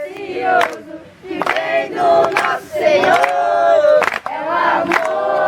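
A group of teenagers singing and shouting together as a chant, with sharp hand claps among the voices.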